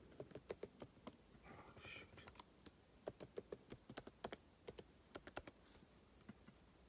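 Typing on a MacBook Pro laptop keyboard: irregular key clicks in quick runs that stop about five and a half seconds in, with a brief soft rustle about two seconds in.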